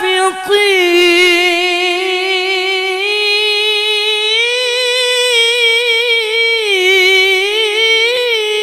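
A male Qur'an reciter (qari) holding one long, high melismatic note in ornamented tilawah style, sung into a microphone and amplified through a sound system. The note steps up in pitch about four seconds in, then wavers with quick ornaments near the end.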